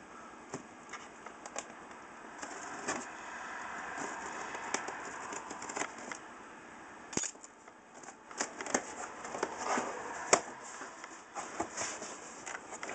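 Cardboard shipping box being handled and opened by hand: scattered taps, knocks and scrapes of the cardboard, with a few sharper clicks.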